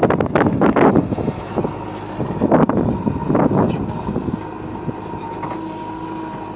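Diesel engine of a heavy earth-moving machine running, with several loud surges of noise in the first few seconds before settling to a steadier, quieter hum.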